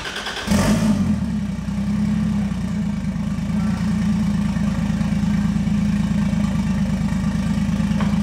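BMW E36's engine starting: a short crank, catching about half a second in with a brief flare, then settling into a steady idle.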